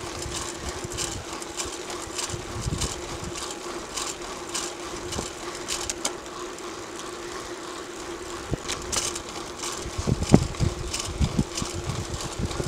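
Mountain bike rolling fast downhill on asphalt: a steady hum with frequent small rattles and clicks from the bike over the road surface, and a run of heavier knocks about ten seconds in.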